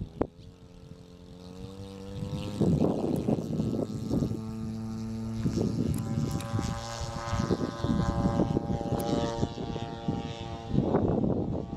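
Propeller airplane engine running, its pitch rising over the first couple of seconds, then holding fairly steady with small shifts before fading out near the end. Rough, gusty noise runs underneath.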